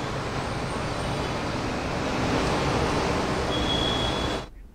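Steady, loud rushing noise on a live reporter's audio line that fails to connect. A brief high tone sounds a moment before the noise cuts off suddenly near the end.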